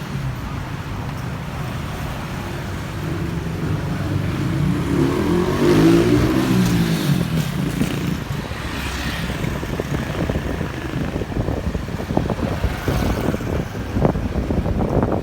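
Street traffic, with a motor vehicle passing close by: its engine swells to a peak about six seconds in, then fades away.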